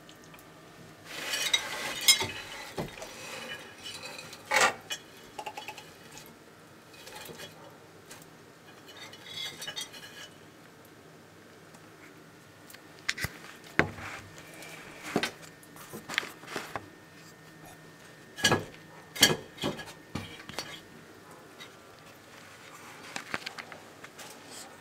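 Dumeril's monitor eating, with scattered sharp clicks and knocks as its jaws work on the food, coming in clusters with a few louder knocks.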